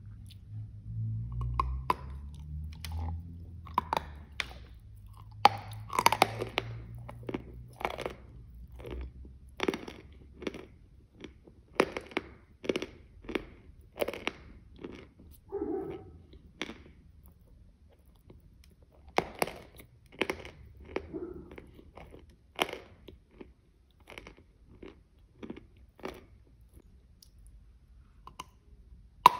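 Close-miked chewing of a large zefir bar coated with jam and crushed chocolate: irregular crisp clicks and wet mouth sounds, with a fresh bite near the end. A low rumble sits under the first few seconds.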